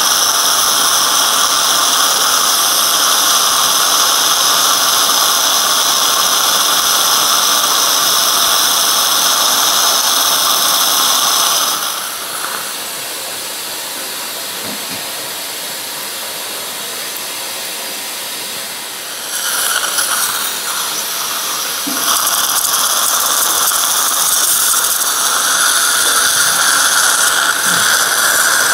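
Surgical implant drill in a 20:1 contra-angle handpiece running at steady speed, a high whine with the hiss of the saline irrigation spray as it drills into the jawbone. The drill stops about twelve seconds in, leaving a softer steady hiss, and starts again about twenty-two seconds in.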